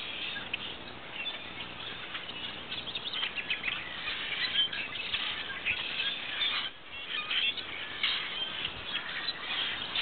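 Small birds chirping in a busy, overlapping chatter of many short chirps.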